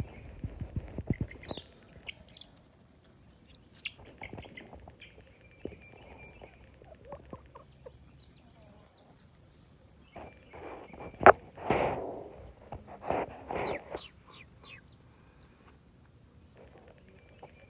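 Chickens clucking and calling, with a scatter of short knocks in the first couple of seconds. About eleven seconds in a sharp knock comes, followed by a run of louder clucks over the next few seconds.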